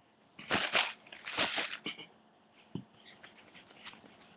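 Rubber eraser scrubbing on drawing paper to rub out a pencil mistake: two louder scrubbing bursts in the first two seconds, then lighter, fainter rubbing and small ticks.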